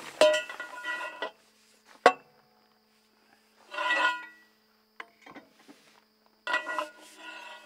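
Four-way cross wrench turning the wheel nuts of a truck's rear wheel, the metal squeaking in three short bursts with a single sharp metallic clank about two seconds in.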